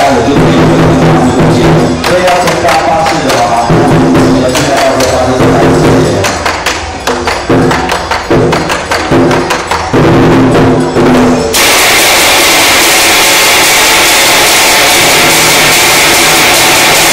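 Chinese temple percussion: a large red barrel drum, cymbals and woodblock-like clacks beating rapidly under a melodic line. About two-thirds of the way through this stops abruptly and is replaced by a continuous loud rushing noise.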